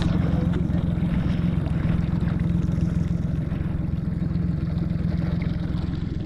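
Boat's outboard motor running steadily at trolling speed, an even low drone with no change in pitch.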